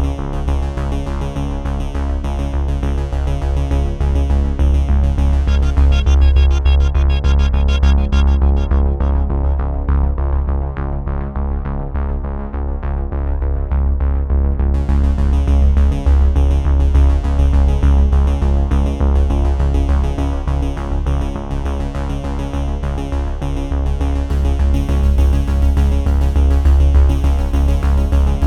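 Background electronic music with synthesizer and a strong bass line; about a third of the way in, the top end is filtered away for several seconds, then returns.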